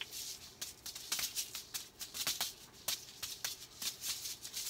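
Juggling balls being thrown and caught by hand: a quick, uneven patter of short slaps, about three a second.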